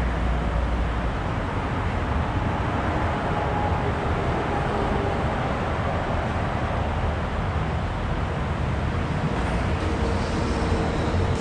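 A steady low machine rumble with an even hiss over it, unchanging throughout.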